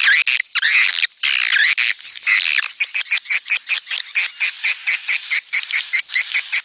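Edible-nest swiftlet twittering, sold as the swiftlet's mating call (suara walet birahi). For the first couple of seconds the chirps are dense and overlapping. After that they come as a fast, even run of short chirps, about seven a second, over a thin high note.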